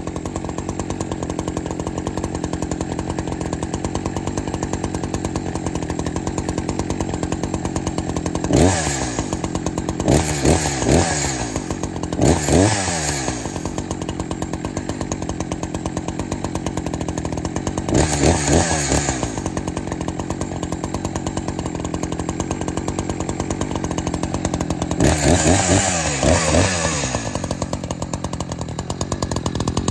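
Brand-new Echo CS-590 two-stroke chainsaw (about 60 cc) idling steadily, blipped up to a high rev and back several times.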